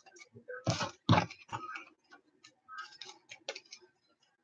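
Trading cards being handled and set down on a table: a run of light clicks and ticks, with two louder taps about a second in.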